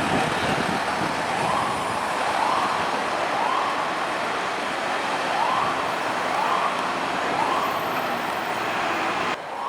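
Fire engine's siren sounding a rising sweep that repeats about once a second, over engine and road noise. The level drops suddenly near the end.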